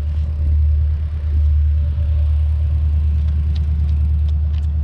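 Wind rumble on the microphone of a camera carried on a moving bicycle, mixed with tyre noise on asphalt: a loud, steady low rumble, with a few light ticks near the end.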